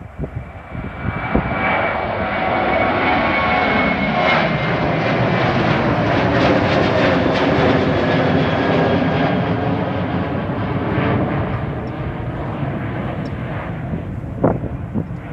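Boeing 737-800's twin CFM56-7B turbofans at climb power as the jet climbs out after takeoff and passes overhead: a dense jet noise that builds over the first couple of seconds, loudest around the middle, then slowly fades, with a high fan whine that falls in pitch as the aircraft goes by.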